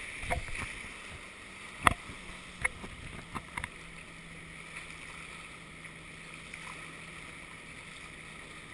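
Shallow surf washing and swirling at the waterline, heard muffled and close, with a few sharp knocks in the first four seconds and a faint steady low hum underneath.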